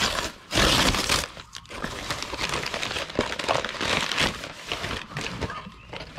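Brown paper mailer bag being torn open and crinkled as a box is pulled out of it: two loud rips of paper in the first second, then steady crackly rustling of the crumpled paper.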